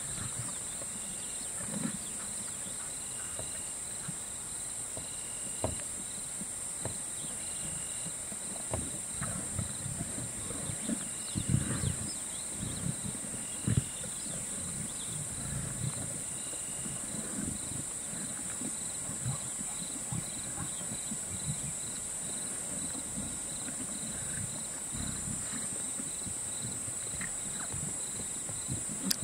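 Savannah ambience: a steady high insect drone with a faint pulsing chirp, short calls repeated every second or two in the first half, and scattered low knocks and thuds, busiest around the middle.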